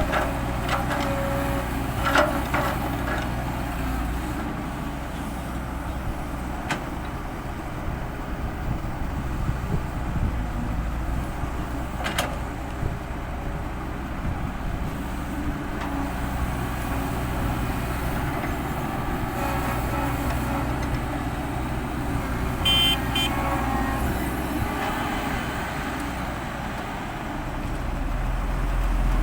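Heavy earthmoving machinery, an excavator and dump trucks, running with steady diesel engine noise. There are occasional sharp knocks and a short high beep about 23 seconds in.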